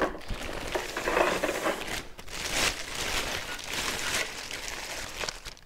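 Clear plastic bag crinkling and rustling in an irregular run as it is handled and pulled off a boxed machine.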